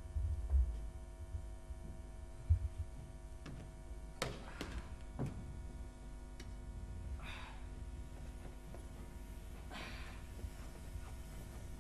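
A wooden plough prop being handled on a stage floor: a few thuds, knocks and short scraping swishes over a steady low hum.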